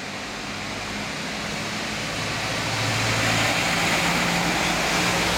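Tow truck with a loading crane driving past close by: its engine and tyre noise grow louder as it approaches, loudest from about three seconds in.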